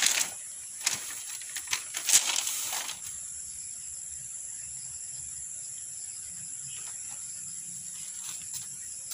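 Split bamboo strips rattling and clattering as they are handled, in a cluster of sharp rustles over the first three seconds. After that, only a steady high drone of insects and a few faint ticks remain.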